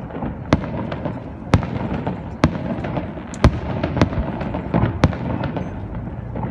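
Fireworks display: shells bursting in sharp bangs about once a second, over a continuous din of further bursts.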